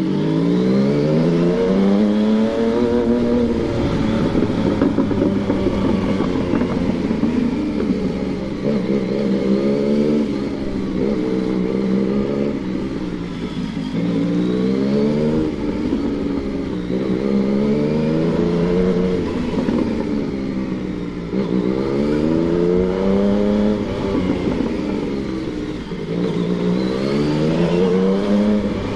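Yamaha MT-09's 847 cc inline-three engine pulling through the gears, its note climbing in pitch and dropping back at each upshift, over and over.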